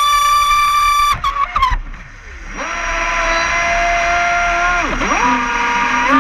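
Radio-controlled boat's motor running as a high whine, then dropping sharply in pitch and nearly cutting out about a second in as the throttle comes off. From about two and a half seconds it winds back up to a lower steady whine over the hiss of the hull through the water, dips briefly near five seconds and climbs again at the end.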